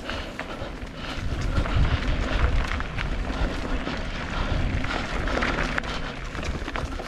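Mountain bike riding a dirt trail: wind rumbling on the microphone over tyre noise and the rattle of the bike, with scattered clicks and knocks over bumps.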